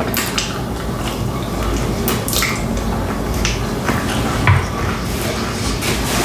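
Close-miked eating of fried chicken wings: wet chewing with irregular smacks and clicks over a low steady hum.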